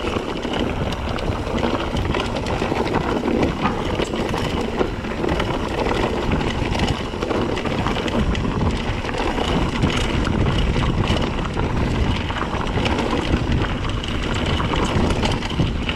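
A mountain bike riding over a rocky dirt trail: a continuous rumble of wind on the microphone with many small rattles and clicks from the tyres and bike.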